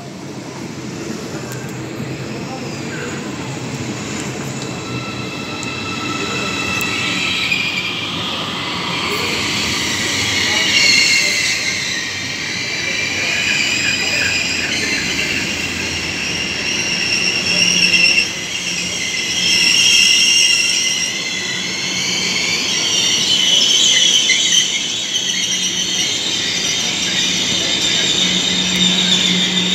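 ICE 4 high-speed train heard from inside a passenger car as it runs. Several high whining tones from its traction drive set in several seconds in and slide upward in pitch, while the overall sound grows louder.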